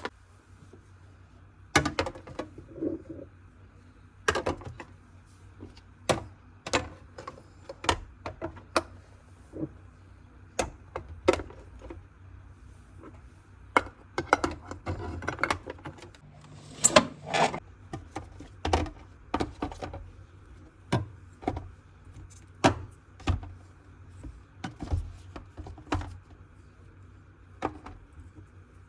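Scattered light knocks, clicks and clatters of household objects being handled and set down, a couple of dozen spread unevenly through the stretch.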